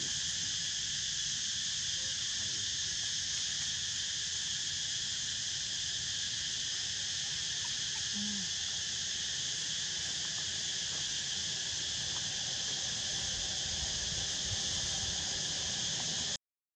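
Steady, high-pitched chorus of insects, even and unbroken, that drops out for a moment near the end.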